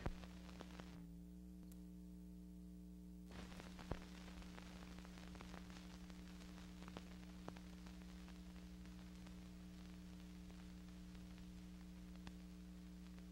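Near silence: a faint steady electrical hum with light crackle and scattered clicks, as on an old film soundtrack, and one small pop about four seconds in.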